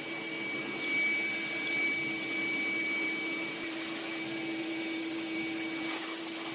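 Shop vacuum running steadily, a motor whine holding one pitch over a rushing hiss, as it sucks dirt and debris off an engine's crankcase.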